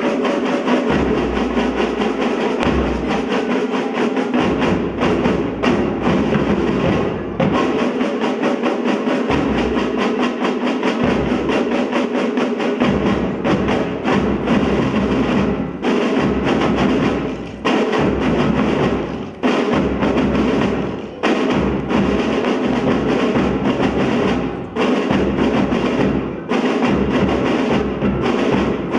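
Pipe band playing: a continuous sustained pipe sound over regularly struck drums, with bass drum in parts.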